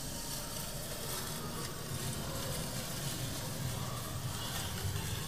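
Steady low rumble and hiss of a moving dark-ride vehicle, with a few faint high chirps near the end.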